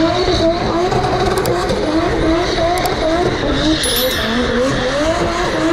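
2JZ straight-six of a Nissan 180SX drift car revving up and down over and over as the car drifts in circles, with its rear tyres screeching and smoking on the tarmac.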